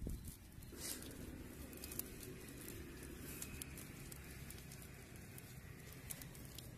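Hands patting and smoothing wet mud around a buried clay pot, making a light patter of small wet clicks and crackles.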